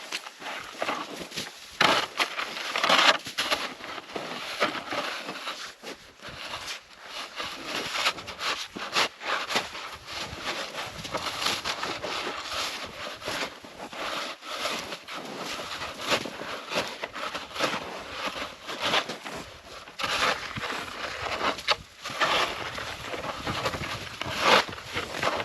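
Snow being dug out: irregular crunching and scraping strokes in packed snow, one after another with no steady rhythm.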